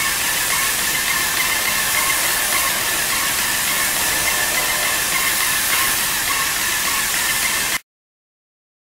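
Putzmeister A190 airless paint sprayer running: a steady high hiss with a faint whine through it, cutting off abruptly near the end.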